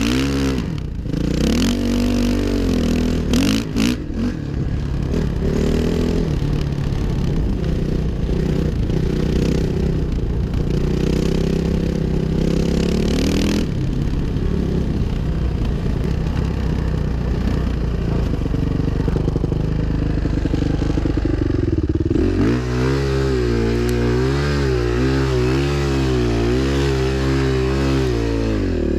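2005 Suzuki RM-Z450's single-cylinder four-stroke engine running under throttle while being ridden, its pitch climbing and dropping as it accelerates and shifts. From about three-quarters of the way through, the throttle is worked up and down in quick repeated swells while the bike spins a circle in wet sand.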